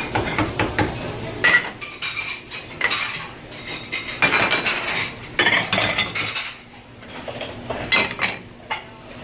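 Plates and silverware clattering and clinking irregularly as dishes are handled at a restaurant dish station, with bright ringing clinks among duller knocks.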